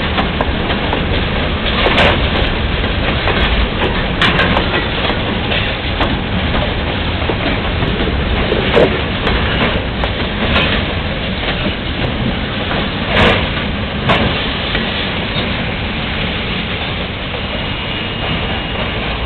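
Freight train cars rolling past, wheels clacking over rail joints in a few sharp knocks, over a steady hiss of heavy rain.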